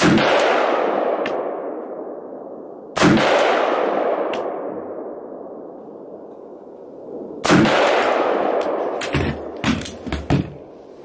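Three single rifle shots from an AR-15 in .223, about three and four and a half seconds apart. Each has a long echoing tail under the covered firing line. Near the end come a few quieter clicks and knocks.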